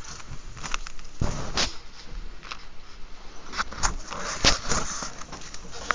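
A pen writing on paper in short scratchy strokes, with a few sharp knocks and taps, the loudest about four and a half seconds in.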